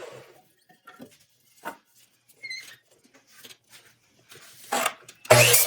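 Light knocks and clicks of wooden pieces being handled and fitted, with a short squeak about two and a half seconds in. Near the end a power tool starts up loudly.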